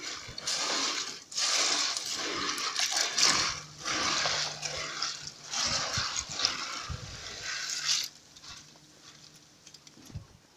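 Small plastic moving-bed biofilter media pieces rattling and swishing as a hand stirs them in a water-filled filter drum. The sound comes in repeated rushes and stops about eight seconds in.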